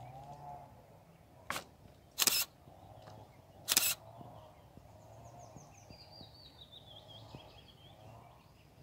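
Mallard hen giving soft, short calls about once a second as she leads her ducklings, with a run of high chirping about halfway through. Three brief, loud rushing bursts come in the first four seconds.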